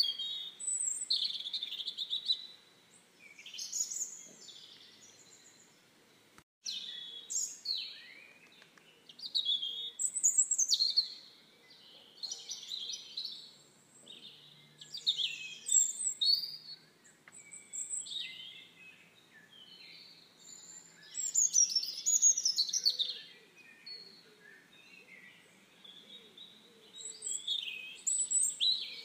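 Songbirds singing: bouts of quick, high chirps and trills, several overlapping, separated by short pauses. The sound drops out for a moment about six seconds in.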